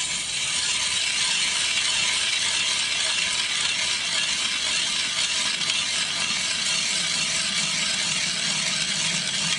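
Ice auger drilling a hole through river ice: a steady scraping of the cutting blades in the ice, unbroken throughout.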